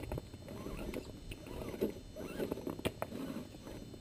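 An Axial SCX10 1:10 scale RC rock crawler working over loose rocks: scattered sharp clicks and knocks as the rocks shift and clatter under its tyres, over an uneven low rumble.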